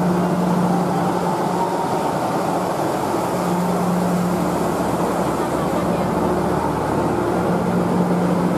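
Passenger train carriages rolling slowly past along a station platform, with steady wheel-on-rail noise. A low steady hum under it fades out twice and comes back.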